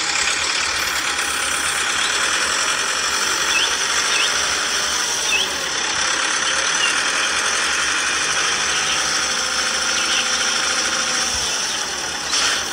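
Small electric motor of a toy tractor's tipping trailer whirring steadily as the trailer bed tilts up to dump sand. A few faint short chirps come a few seconds in.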